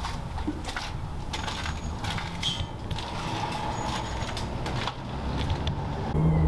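Outdoor ambience: a steady low rumble, typical of distant city traffic, with scattered light clicks and crunches, and faint high chirps now and then.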